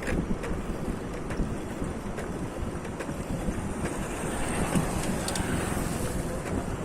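Wind buffeting the microphone over the steady rumble of a vehicle on the move, with scattered small clicks. A hiss swells and fades about four to six seconds in.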